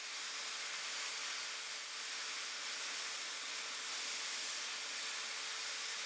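Power drill running steadily at constant speed, its bit held in the side hole of a burning log to force air into the fire of a makeshift log forge: an even hiss with a faint steady hum.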